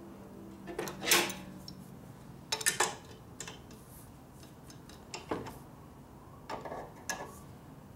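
Metal nuts and hand tools clinking and tapping as parts are handled on a motorcycle's fork: a handful of sharp, irregularly spaced clinks, the loudest about a second in, over a low steady hum.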